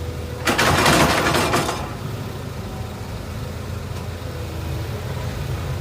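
Heavy diesel engine idling steadily with a low hum. About half a second in, a loud rushing noise cuts in and lasts just over a second.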